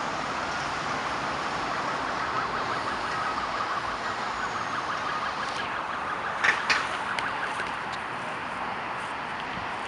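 Steady city traffic noise from cars passing on the boulevard, with two sharp clicks about six and a half seconds in.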